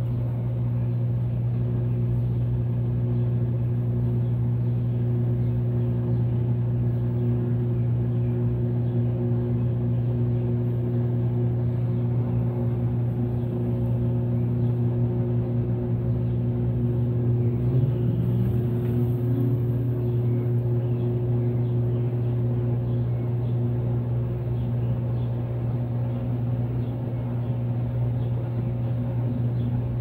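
Brastemp Vantage top-load washing machine spinning a load of jeans, with the basket and agitator locked together for the spin: a steady motor hum made of several held low tones. Partway through, one tone rises in pitch.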